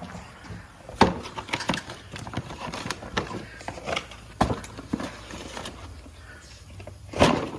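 A new set of spark plug wires being handled and unpacked: irregular clicks and knocks of the wires and their packaging, with rustling between them and a louder flurry near the end.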